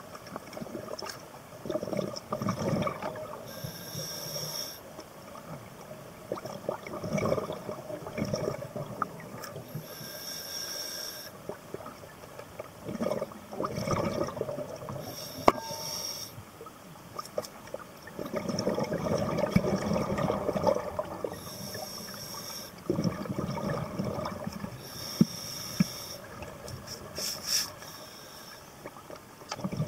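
A scuba diver breathing underwater through a regulator. A short hiss marks each inhalation and a longer rush of bubbles each exhalation, in a slow cycle of about one breath every five or six seconds.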